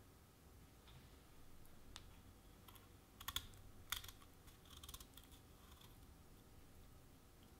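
Kitchen knife cutting and shaving the brown inner skin (shibukawa) off a chestnut: a few short crisp cuts and scrapes, bunched about three to five seconds in, the rest near silence.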